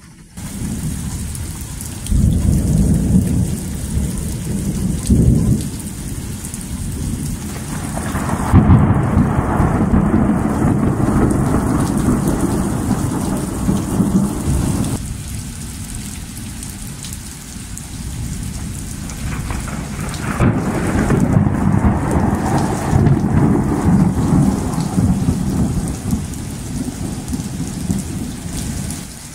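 Thunder rumbling in long rolls over steady rain. One roll starts about two seconds in, a louder one about eight seconds in, and another about twenty seconds in.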